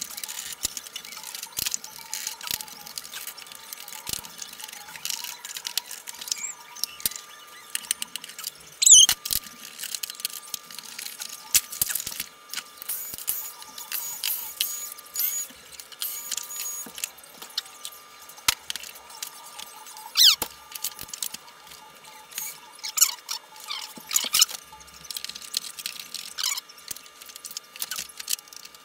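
Irregular clicks, knocks and a few short squeaks from a vacuum cleaner's plastic parts and fittings being handled and pried apart.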